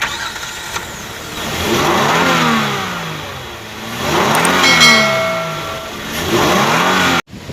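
Hyundai Sonata DN8 2.5-litre four-cylinder engine revved up and let fall back three times. This is the knocking engine that was run with no oil.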